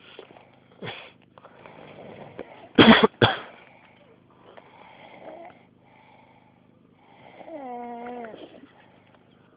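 A man snoring: noisy, rasping breaths, and near the end a long, wavering, pitched snore that sounds like a sheep bleating. About three seconds in, two loud sharp bursts are the loudest sounds.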